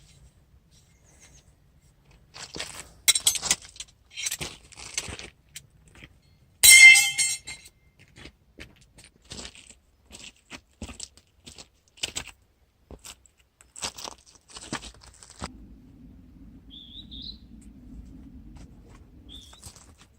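Small hard metal or glass camping gear being handled: scattered clicks and clattering, with one loud ringing clink about halfway in. A low steady rumble sets in for the last few seconds, and short bird chirps sound twice near the end.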